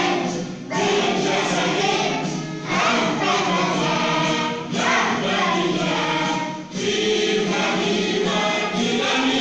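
A class of young schoolchildren singing the national anthem together as a choir, in sung phrases broken by short pauses for breath.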